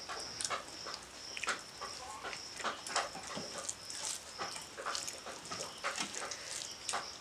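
Eating sounds: fingers mixing and squeezing rice and curry on steel plates, with chewing and lip smacks, heard as a string of short wet clicks. A thin high steady tone comes and goes behind them.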